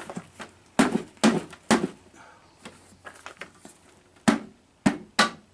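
Sharp knocks and clicks as the seat bottom and its seat track are handled and worked on: three about half a second apart near the start, and three more close together near the end.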